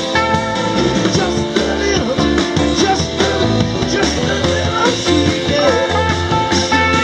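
Live rock band playing: electric and acoustic guitars, drum kit and keyboard, amplified through the stage PA.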